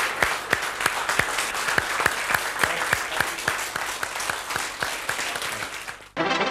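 Studio audience applauding a guest onto the stage, with dense, sharp hand claps. It cuts off abruptly just before the end, when theme music starts.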